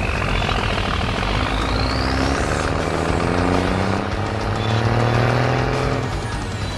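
Cartoon truck engine sound effect, rising in pitch as it revs up, with a high rising sweep in the first two seconds, over background music.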